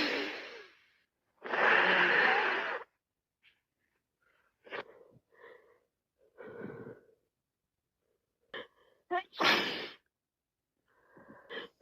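A woman with a head cold sneezing repeatedly: a long, loud sneeze about two seconds in, quieter sniffs and breaths, then a few short catching in-breaths and another sneeze later on.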